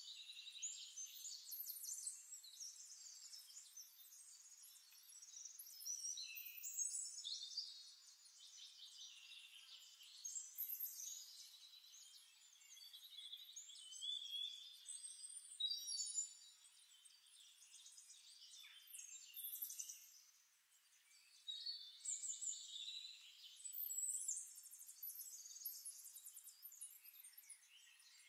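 Faint, high-pitched chirping and warbling, like distant birdsong, coming and going in short phrases throughout.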